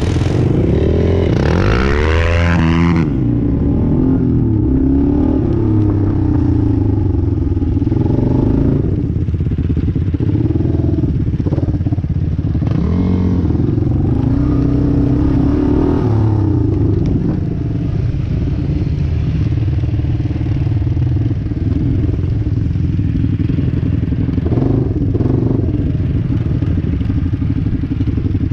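ATV engines running as the quads are ridden over rough dirt, the engine note rising and falling with the throttle. There is a quick rev up and down about two seconds in.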